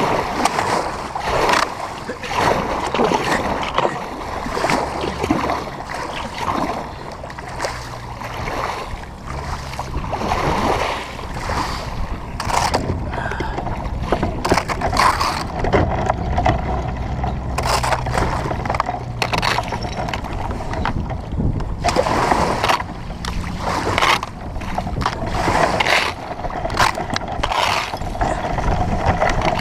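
Wilderness Systems Tempest 170 sea kayak being paddled through water with floating ice: paddle splashes and water sloshing, with irregular sharp knocks and a low wind rumble on the microphone.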